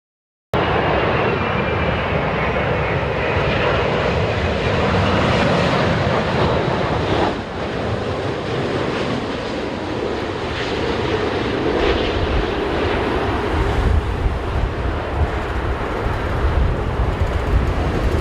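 Boeing 787 jet engines on a landing approach: a steady, loud jet noise that starts abruptly, with a faint high whine in the first few seconds. From about two-thirds of the way through, gusty wind buffets the microphone with an uneven low rumble.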